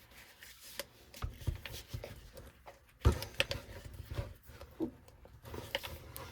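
Irregular clicks and knocks of hands working at a stubborn container to get it open, with a heavy thump about three seconds in.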